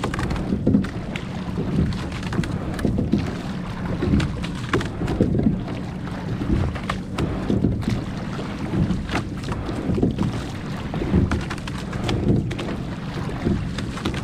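Rowing boat under way: water noise along the hull with repeated surges and short knocks every second or two as the oars work, over wind rumbling on the microphone.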